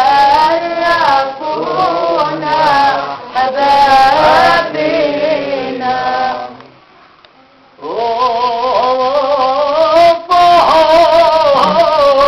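Lebanese folk singing in the mijana and ataba style: wavering, ornamented vocal lines that break off into a short pause a little past halfway. After the pause, a single voice takes up a long, held, ornamented line.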